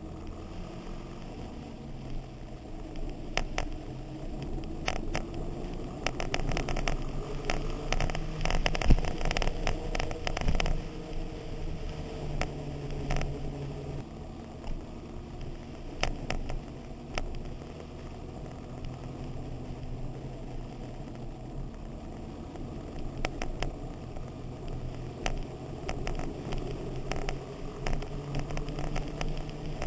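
Motorcycle engine running at road speed, its note rising and falling with the throttle, with frequent sharp clicks and rattles over it.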